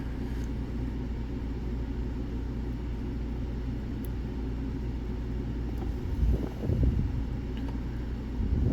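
Steady low background rumble, with a faint tick about four seconds in and a brief louder rustle of handling around six to seven seconds in, while a lock is being picked by hand.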